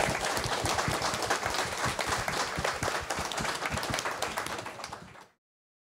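Audience applauding, a dense patter of many hands clapping that fades a little and then cuts off abruptly just over five seconds in.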